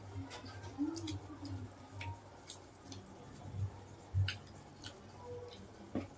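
Close-up eating sounds: wet squelching and scattered sharp clicks and smacks as a piece of pork hock in thick kare-kare peanut sauce is pulled apart by hand and chewed.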